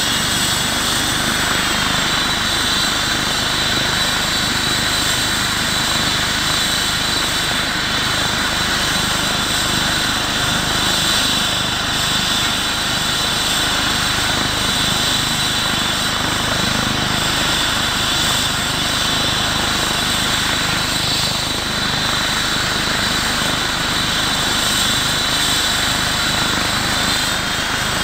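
Aircraft turbine engines running steadily, a constant rushing noise with a high whine over it.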